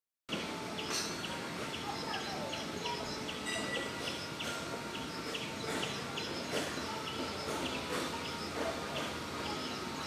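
Outdoor natural ambience with birds calling, and a short high chirp repeating steadily about twice a second.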